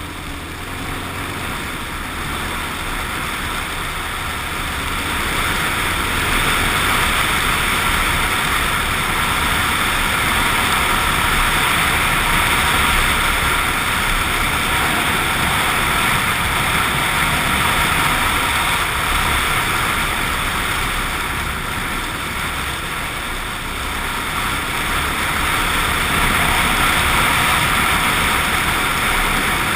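Suzuki XF650 Freewind's single-cylinder engine running under way, with a steady rushing noise over it. It grows louder over the first several seconds, eases a little past the middle and swells again near the end.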